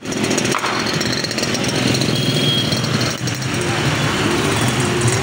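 Street traffic dominated by motorcycle engines running close by, a steady rapid low pulsing.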